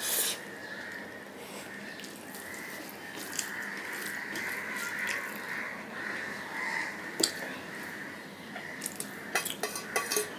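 Steady close-up sounds of a mouthful of puffed rice and curry being chewed and mixed by hand on a steel plate. Near the end comes a quick rattle of dry puffed rice poured from a steel bowl onto the steel plate.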